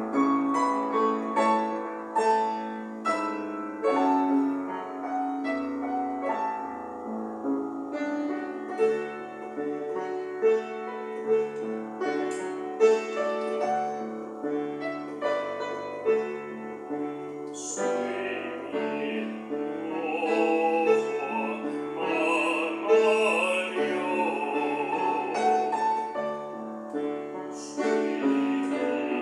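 Upright piano playing a solo passage of a slow art song accompaniment, with a tenor's classically trained singing voice coming back in a little past halfway and carrying on over the piano.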